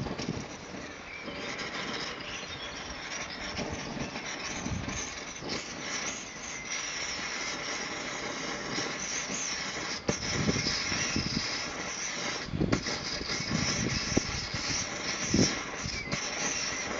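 Optimus Svea 123 white gas stove burner running with a steady hiss while its flame settles, the vaporizer not yet fully primed because of the wind. Wind buffets the microphone in gusts throughout.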